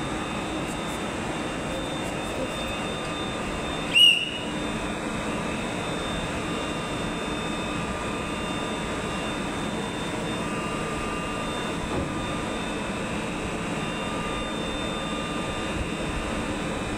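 Steady running noise of a Stadler FLIRT ER160 electric multiple unit, with faint steady whines over it. About four seconds in comes one brief, loud, high-pitched sound.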